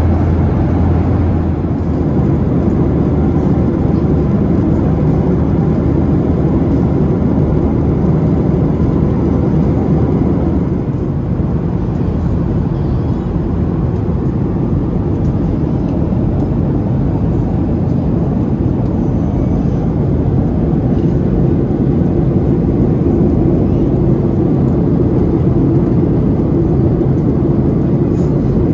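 Steady, loud drone of a moving vehicle heard from inside. A deep low hum beneath it drops away about ten seconds in.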